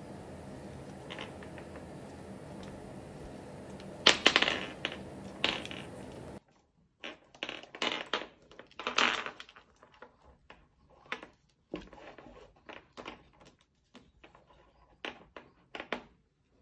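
Pearl beads and small gold beads clicking and rattling against each other as fishing line is threaded through them and pulled tight. A louder clatter comes about four seconds in, then scattered short clicks.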